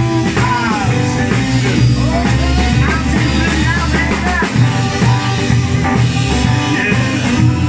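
Band playing a blues-rock song: electric guitar and drums over a steady bass, with a lead line of bending notes.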